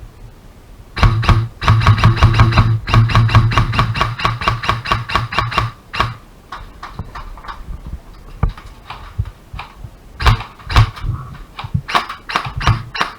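Airsoft gun firing on full auto: a long rapid burst of about five seconds starting about a second in, with the motor hum running under the shots. This is followed by scattered single shots and short rapid bursts near the end.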